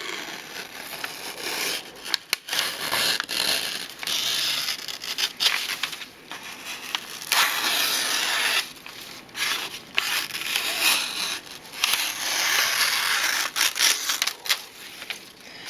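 Kitchen knife with a sandpaper-sharpened convex edge slicing through sheets of paper: a series of hissing, rasping strokes, each lasting a second or so, with short gaps between.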